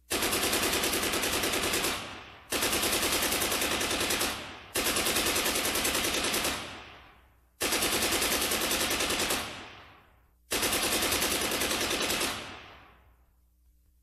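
Five bursts of rapid automatic machine-gun fire, each about two seconds long and trailing off in echo: a recorded gunfire sound effect played over a theatre sound system.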